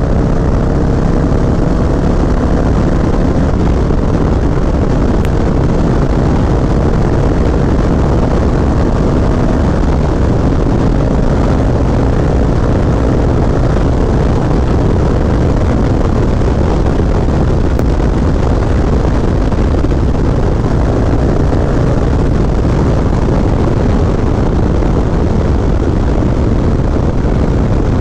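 Harley-Davidson V-twin running through a Bassani Road Rage 3 exhaust, its pitch rising gently over the first several seconds and then holding steady under a dense low rumble.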